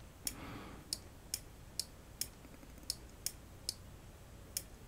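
Computer mouse clicking: about nine short, sharp single clicks, roughly two a second.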